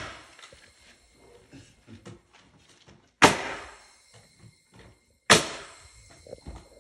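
Two sharp nailing strikes about two seconds apart, fasteners being driven through new floor material into a wooden stud, each with a short ringing tail, with faint scuffing between them.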